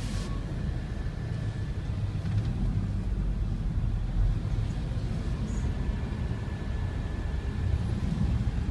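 Steady low rumble of engine and road noise heard from inside a vehicle moving slowly in dense city traffic.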